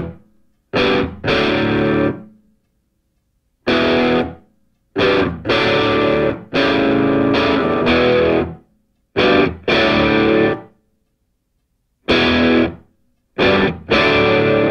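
Background music of distorted electric guitar playing stop-start riffs: short loud chords and phrases broken up by abrupt dead silences.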